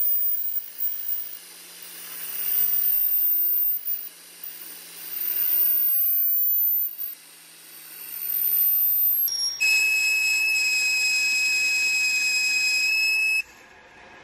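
Metal lathe cutting the face of a steel flange: a hissing cut noise over a low spindle hum, swelling and easing several times. About nine seconds in it gives way abruptly to a steady high electronic tone sounding several pitches at once, which holds for about four seconds and then cuts off.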